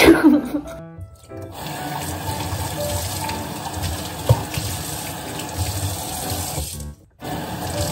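Water running steadily from a tap into a sink, with a single clink about four seconds in; it stops briefly about a second before the end and then runs again. A short falling sound effect and a few notes of music come first.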